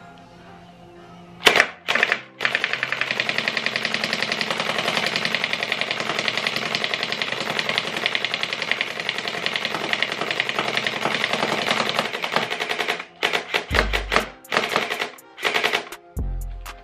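Electric gel blaster (Vector Pro with drum magazine) firing on full auto. A couple of short bursts come first, then one long unbroken stream of rapid shots lasting about ten seconds, then several short bursts near the end.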